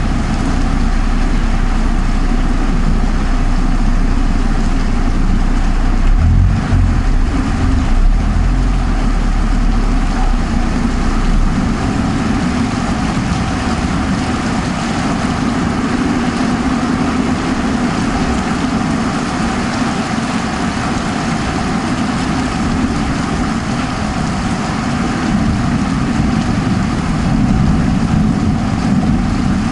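Heavy rain falling steadily, a dense even hiss, with a low rumble of thunder about six seconds in that fades over the next few seconds.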